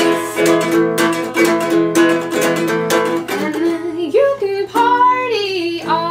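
A ukulele strummed in a steady rhythm while a woman sings along, holding and sliding between notes in the second half.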